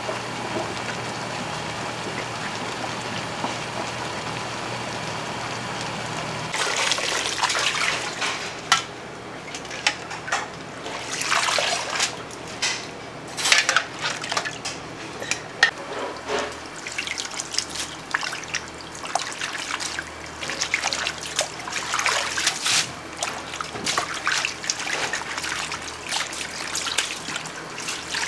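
A steady hiss with a faint hum. About six seconds in, water starts running, splashing and trickling irregularly, like kitchen work at a sink.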